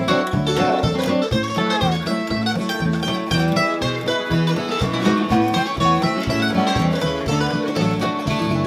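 Live country band playing an instrumental break with no singing: resonator guitar, mandolin, electric bass and snare drum over a steady bass beat, with sliding notes on top.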